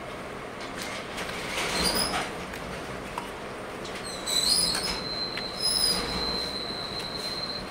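A steel spoon clinking and scraping in a stainless-steel thali bowl of chana curry, over a noisy background. About four seconds in, a high, steady squeal starts and holds.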